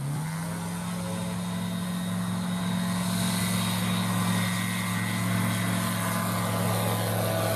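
Zenith STOL light aircraft's engine and propeller at take-off power, a loud steady drone with two low tones held level throughout.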